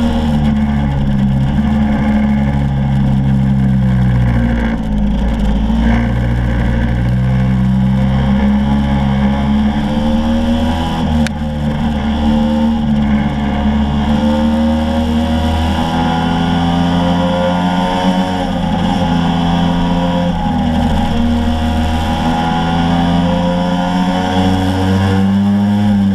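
Motor scooter engine running under load on a climb, its pitch dipping and climbing again several times as the throttle eases and opens, with wind rushing over the low-mounted camera.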